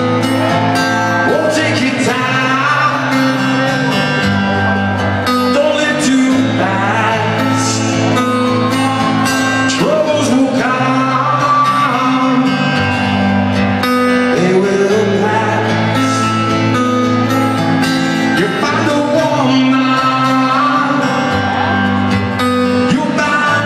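Live rock band playing a slow song through a concert PA: a male lead singer sings over guitar and band.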